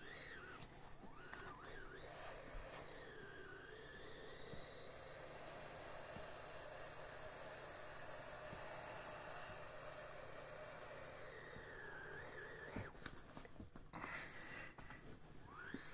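Air escaping through the open inflation valve of a small plastic inflatable toy boat as it is pressed by hand: a steady hiss with a whistle that wavers and glides in pitch. The flow breaks up briefly near the end.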